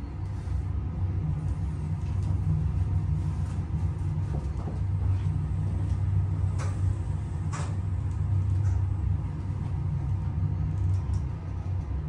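Modernized Otis elevator car descending, with the steady low rumble of the ride heard inside the cab. It eases off near the end as the car slows for its stop, and a couple of light clicks come partway through.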